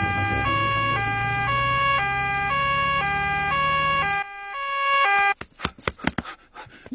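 Cartoon ambulance's two-tone siren sounding, alternating between a higher and a lower note about every half second over a low engine hum. The hum drops out about four seconds in and the siren stops soon after. A few quick taps follow near the end.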